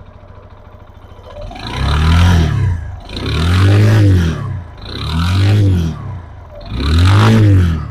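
TVS Apache RTR 160 BS6 2V single-cylinder engine idling, then revved four times, each rev rising and falling in pitch. The timing chain and one-way starter clutch have just been replaced. The engine runs smoothly, with only a slight piston noise left, as the mechanic hears it.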